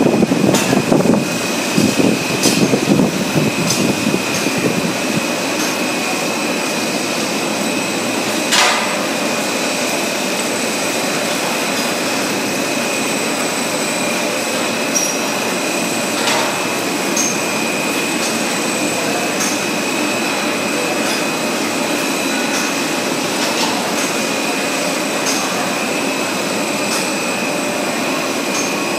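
Stretch film production line running: a steady machine hum and whir with a constant high-pitched whine, and a few isolated sharp clicks.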